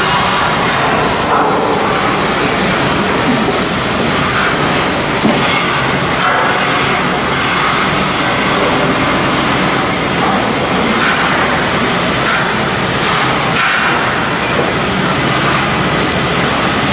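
Steady, loud mechanical din of shipbuilding work, a continuous noise with a faint steady hum under it.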